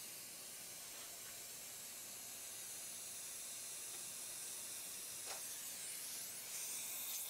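A steady hiss, with a faint click about five seconds in.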